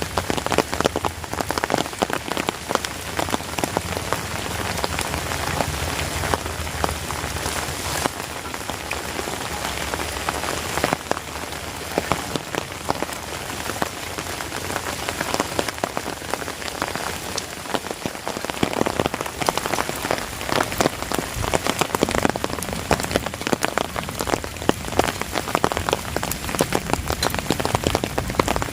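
Heavy rain falling steadily, with a dense patter of many sharp close drop hits over the continuous hiss of the downpour.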